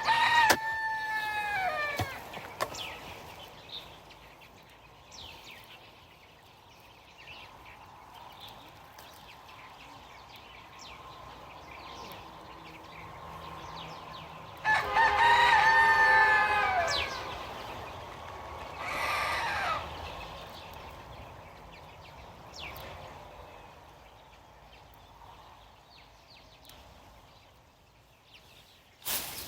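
A rooster crowing twice, once at the start and again about fifteen seconds later, each crow a held call that drops in pitch at the end.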